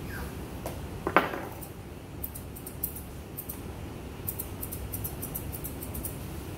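Grooming scissors snipping through a Pomeranian's thick coat in quick runs of small high clicks, several cuts a second. A dog gives one short falling yelp about a second in.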